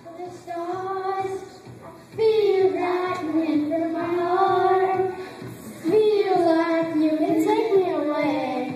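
Children singing a song into microphones in long held phrases, with short breaks between lines about two and five and a half seconds in.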